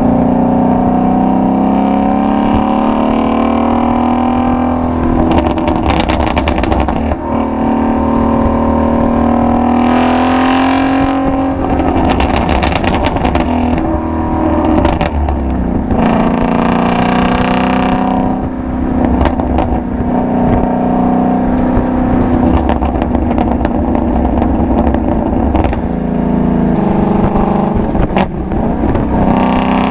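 Ford Mustang Shelby GT350's 5.2-litre flat-plane-crank V8 exhaust under way. The engine note climbs and then steps down again several times as the car shifts through the gears, with short bursts of harder throttle.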